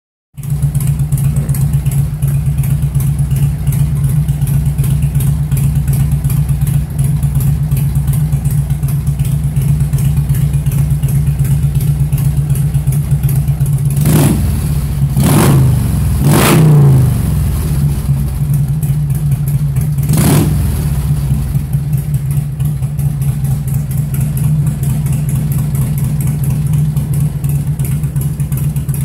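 1997 Harley-Davidson Electra Glide Standard's Evolution V-twin engine running at idle, with a few short throttle blips that raise the revs a little past halfway.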